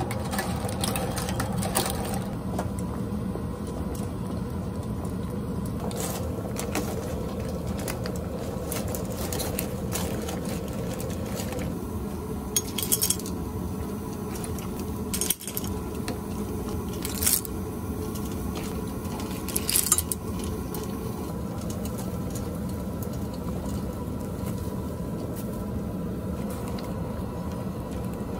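A metal ladle clinking and scraping against a stainless steel pot while clams are scooped out of the broth, with a few sharp clinks spaced several seconds apart over a steady low hum.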